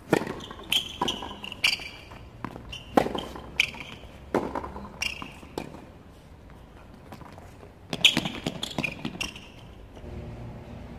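Tennis ball struck by rackets and bouncing on a hard court, a string of sharp pops about a second apart. They pause for a couple of seconds past the middle, then a few more hits follow near the end.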